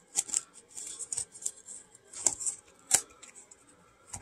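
Hands working a plastic card holder taped with painter's tape: light crinkling and rustling with a few sharp clicks.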